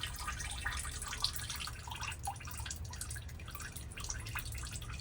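Old automatic transmission fluid from an Aisin 8-speed gearbox trickling and dripping from the drain hole into a catch container, in irregular drops and splashes.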